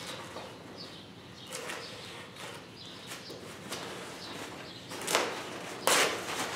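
Paper towel roll being handled: soft paper rustling as the loose end is picked free, then two louder rustles about five and six seconds in as a length of towel is pulled off the roll.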